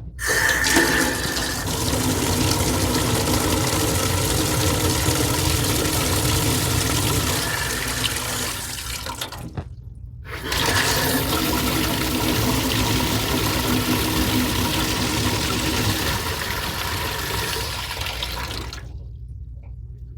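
Faucet with its aerator removed running full, water rushing out to flush debris from the valve stems. It runs for about nine seconds, shuts off for a second, then runs again for about eight seconds before shutting off near the end.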